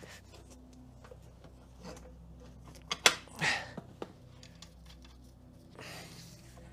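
A single sharp knock about three seconds in, then a short breathy rush, over a faint steady hum.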